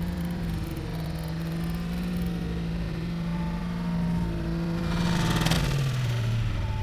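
Nissan 350Z drift car's engine held at steady high revs while it slides with the rear tyres spinning. About five seconds in there is a brief rush of noise and the revs drop.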